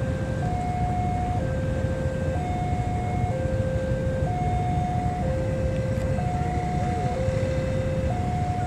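Level crossing warning alarm sounding a steady electronic two-tone signal, high and low notes alternating about once a second, over the low rumble of a diesel locomotive approaching at walking pace.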